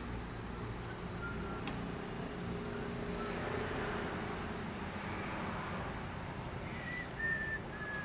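Steady background rumble of road traffic, with three short high-pitched chirps close together near the end.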